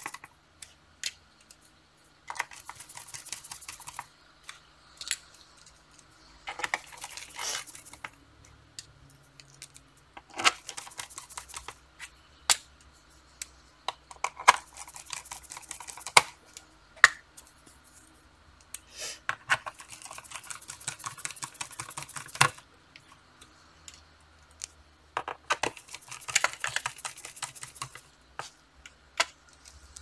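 Small hand screwdriver driving the screws of a plastic laptop bottom cover back in: scratchy stretches of turning, each about a second long, with sharp clicks and taps between them.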